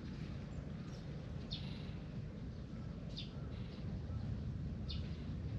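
A bird repeating a short, high chirp about every second and a half, three times, over a steady low background rumble.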